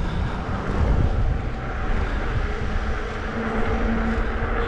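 Wind buffeting the microphone of a camera riding along on a bicycle, a heavy uneven low rumble mixed with road noise. A steady humming tone joins in about three seconds in.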